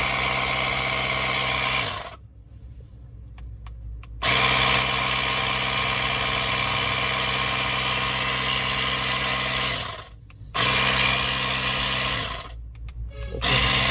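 Rechargeable cordless air compressor's small motor-driven pump running with a steady hum. It runs in three spells: it stops about two seconds in, restarts about four seconds in and runs for some six seconds, pauses briefly, then runs for about two more seconds before cutting off.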